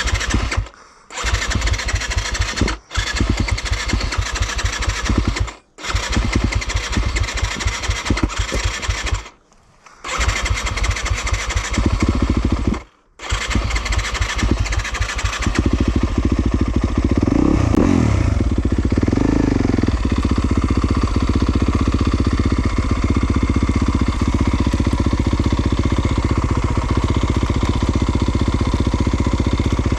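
2020 Yamaha YZ250FX's 250cc four-stroke single-cylinder dirt-bike engine running under load. The sound cuts out to near silence several times in the first half, then runs steadily, with the revs rising and falling a few times about two-thirds of the way through.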